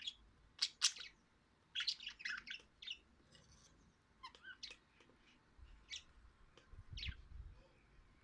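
Budgerigars chirping and squawking in short, scattered calls, in quick clusters during the first three seconds and more sparsely after. A faint low rumble sits under the calls about six to seven seconds in.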